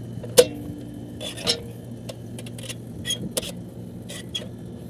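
Air conditioner running just after being switched on, with a steady low hum. Several sharp clicks and knocks sound over it, the loudest about half a second in.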